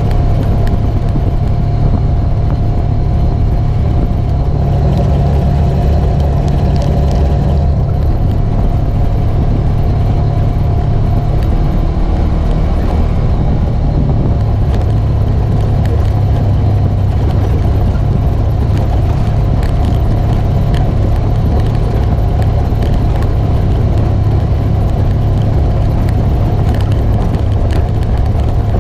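Polaris RZR 900 Trail side-by-side's twin-cylinder engine running steadily under way, heard from inside the open cab.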